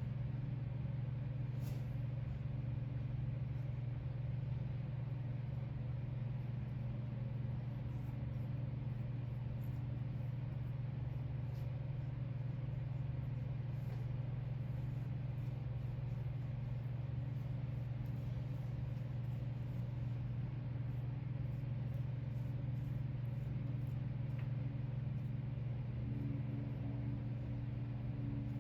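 A steady low mechanical hum that holds even throughout, with a faint higher tone growing a little stronger near the end.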